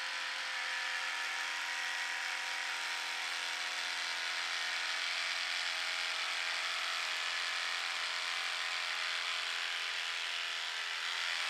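Electric horse clippers running at a steady hum while cutting through the horse's coat.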